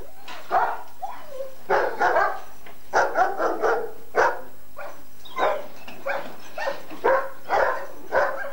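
German shepherd dogs barking repeatedly, a run of short barks about two to three a second.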